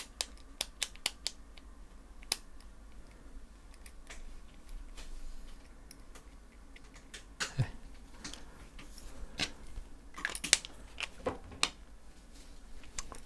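Light scattered clicks and taps of a hex driver and a threadlocker pen against the handguard and its screw while Loctite is applied to a hex screw, coming in small groups with quiet pauses between.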